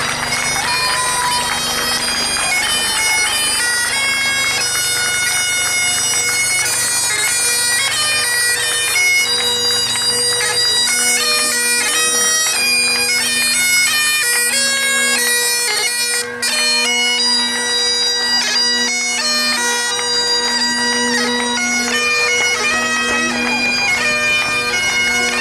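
Bagpipes playing a tune: steady drones under a chanter melody of held notes that change pitch in steps.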